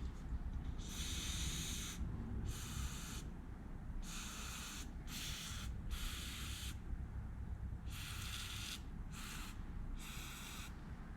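Aerosol carburetor cleaner sprayed in about eight short hissing bursts into the small holes of a gummed-up small-engine carburetor, cleaning out varnish left by fuel that sat in it over winter.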